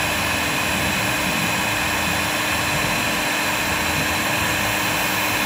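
A 2,000-watt electric heat gun running steadily, its fan blowing hot air with an even whir and a constant low hum. It is held on one spot of a PVC waterstop long enough to overheat the PVC and scorch it.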